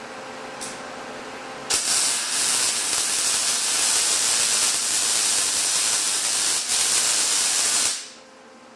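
Electric welding arc running on steel: a steady hiss that starts sharply about two seconds in and cuts off just before the end, over a quieter steady hum.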